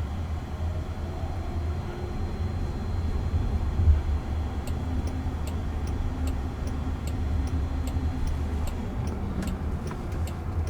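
Steady low road and tyre rumble inside a moving car's cabin, with one louder knock about four seconds in. Faint, even turn-signal clicks, about two a second, tick for a few seconds from about halfway and then stop.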